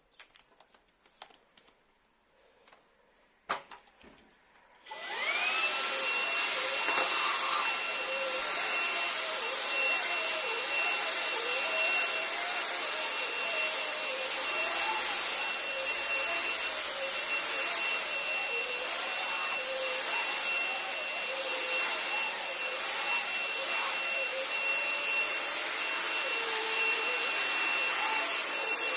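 Dreame V10 cordless stick vacuum being switched on after a few handling clicks and one sharp click. Its motor spins up within a second to a steady high-pitched whine over a rush of air, and runs on.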